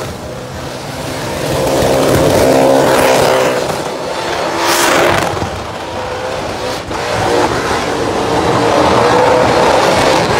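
Supercharged burnout car's engine held at high revs, rising and falling several times, as its rear tyres spin and smoke on the burnout pad.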